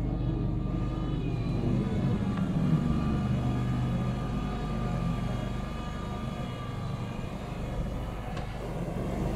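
Engine of a small homemade wheel loader running steadily as the machine drives and raises its bucket, with some rise and fall in engine note partway through.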